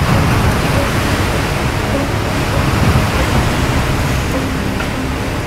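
Ambient soundtrack: a steady, rushing noise like wind or surf, with low held tones underneath.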